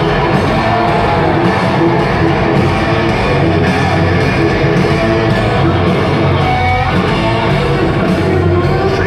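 Live rock band playing loud and steady, with electric guitars over bass and drums, heard from the crowd in an arena.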